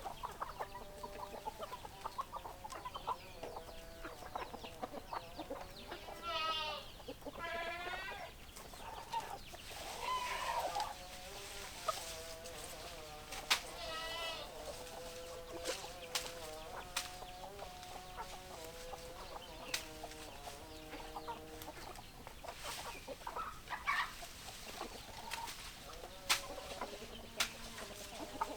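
A flock of chickens: hens clucking and murmuring continuously, with a few longer wavering calls and scattered sharp clicks.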